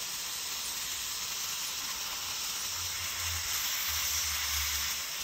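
Steady hiss of a plastic welding gun blowing hot air onto the fan shroud's plastic as it melts.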